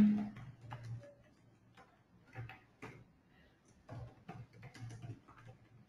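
Faint computer keyboard typing: irregular, closely spaced keystroke clicks.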